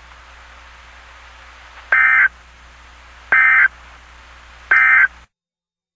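Emergency Alert System end-of-message signal: three short, identical bursts of digital data tones (SAME code), about a second and a half apart, over a faint steady hiss. The audio cuts to silence after the third burst.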